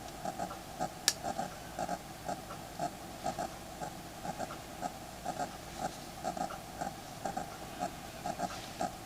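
A single sharp click about a second in, typical of a phone's ribbon-cable connector being pressed home onto the circuit board. Behind it runs a faint, irregular pulsing of unclear source, a few pulses a second.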